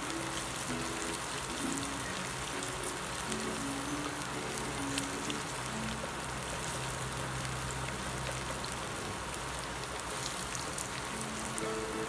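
Potato-and-coconut kachoris deep-frying in hot oil: a steady sizzle full of fine crackles, with soft background music.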